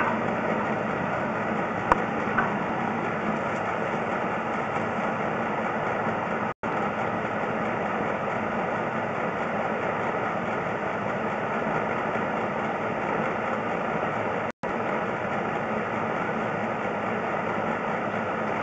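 A steady machine drone, even and unchanging, that cuts out completely for an instant twice.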